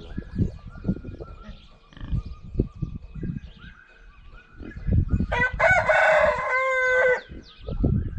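A rooster crows once, loud and drawn out for about two seconds, starting around five seconds in. Faint small-bird chirps and low rumbling are heard around it.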